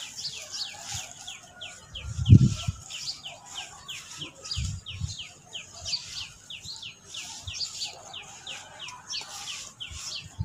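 Soft charcoal chunks crumbling and dropping in hand onto a pile of powder, giving a few soft thuds, the loudest about two seconds in. A bird chirps rapidly throughout, a steady string of short falling chirps several a second.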